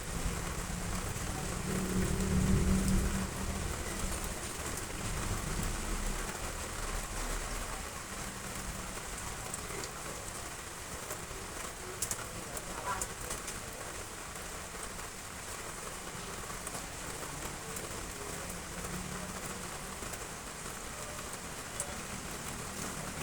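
Heavy rain falling steadily on roof tiles. A low rumble swells and fades in the first few seconds.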